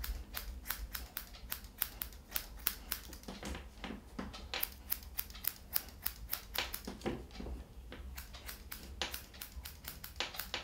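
Grooming scissors snipping through an Airedale terrier's wiry coat in quick, irregular cuts, several a second, with short pauses between runs.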